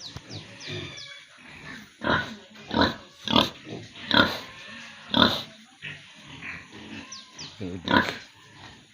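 Pigs grunting and squealing in their pens, with about six loud short calls scattered among quieter grunting.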